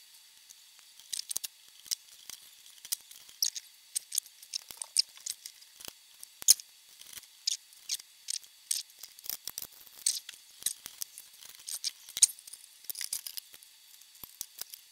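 Irregular small clicks, ticks and light metallic taps as toaster parts and a screw are handled and fitted back in during reassembly.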